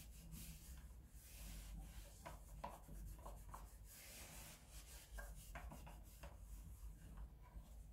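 Wet cloth rubbing and wiping over a wall light switch and the wall around it, faint irregular strokes.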